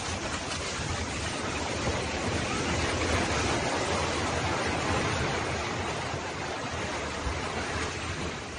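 Multi-storey apartment building collapsing in an earthquake: a continuous rushing roar of falling concrete and debris with a deep rumble, swelling a few seconds in and easing off near the end, heard through a phone microphone.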